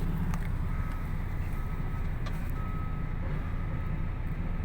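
Container truck's engine idling, heard from inside the cab: a steady low rumble with no change, while the truck sits stationary in a queue.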